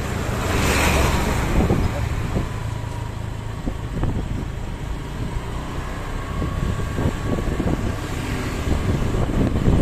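Road vehicle noise: a bus's engine running as it passes, with a brief rushing hiss about a second in.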